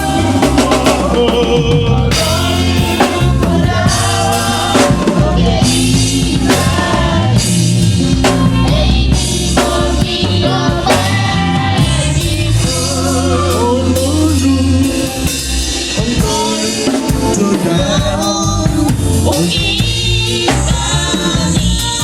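Yoruba gospel band music with a drum kit and a heavy bass line under melody lines, played loud and without a break.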